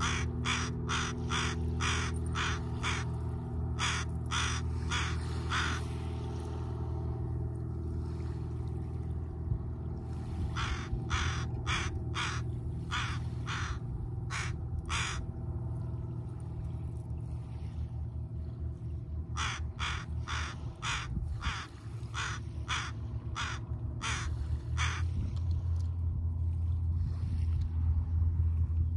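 Crows cawing in three runs of rapid harsh caws, about two or three a second, with pauses of several seconds between runs, over a steady low rumble.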